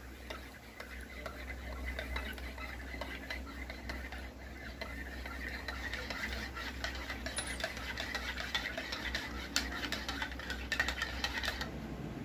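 A metal spoon stirring milk in a ceramic mug, with many quick light clinks against the sides, over a steady low hum. The clinking stops shortly before the end.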